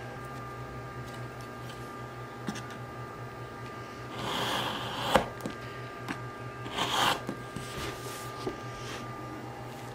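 Folding utility knife drawn through leather along the edge of a template: two short slicing strokes, about four and seven seconds in, with a sharp click as the first one ends. A steady low hum sits underneath.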